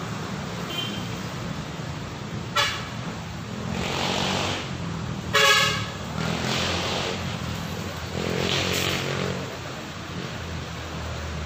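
Road traffic passing, with a vehicle horn giving two short toots, about two and a half and five and a half seconds in, the second louder and a little longer. A low engine drone runs under it, swelling as vehicles go by.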